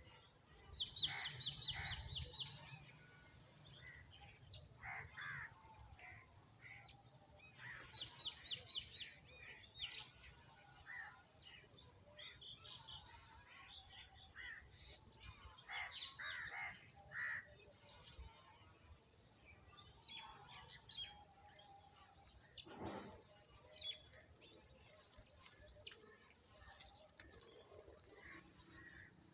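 Sparrows chirping in a steady scatter of short high calls, with a quick even trill about a second in and again around eight seconds in.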